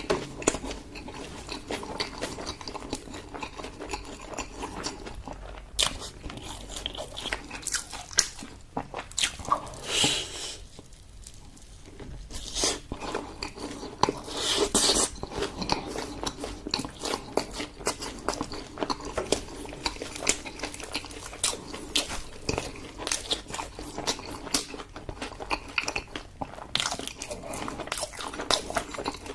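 Close-miked eating: biting and chewing with a dense run of sharp, wet mouth clicks, easing off briefly about a third of the way in.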